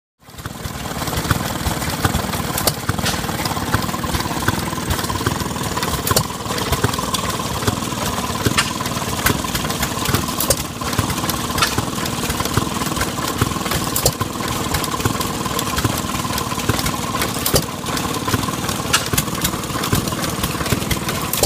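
1920 Economy Model E 1½ hp single-cylinder hit-and-miss gas engine running under its flyball governor. It fires a sharp bang only every few seconds at uneven spacing and coasts on its flywheels between.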